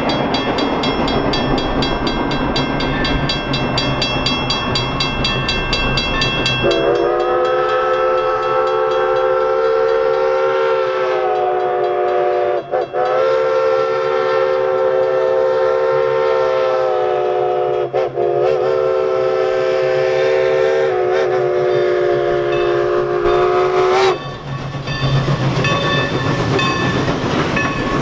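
Level-crossing bell ringing steadily. From about seven seconds in, a steam locomotive's whistle sounds in long blasts for about seventeen seconds, with a few brief breaks: the crossing signal as the train approaches. Near the end the whistle stops, and the train rolls through over the bell.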